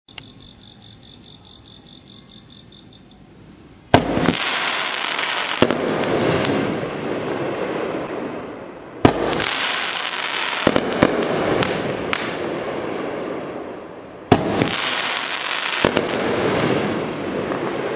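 Doremi 'Striker' 500 g 30-shot fireworks cake firing. After about four quiet seconds, sharp reports come about four, nine and fourteen seconds in, each opening several seconds of dense crackling bursts with extra cracks along the way.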